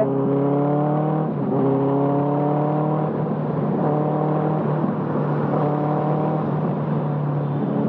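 Benelli TNT 600i's inline-four engine running through an IXIL full-system exhaust, in third gear on light throttle. The note is steady, its pitch rising gently a few times.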